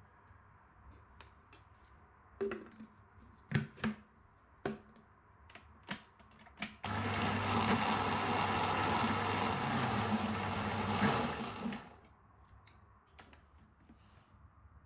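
A few sharp clinks and knocks as the spoon and the blender lid are handled, then a countertop blender runs steadily for about five seconds, starting suddenly near the middle and stopping about two seconds before the end, blending banana, oats, flaxseed and milk into waffle batter.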